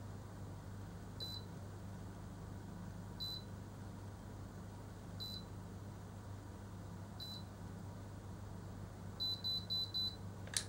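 Automatic hair curler beeping while it holds a curl: single short high beeps about every two seconds, then four quick beeps, the signal that the curl is done and can be released. A steady low hum runs underneath, and a brief sharp click comes just before the end.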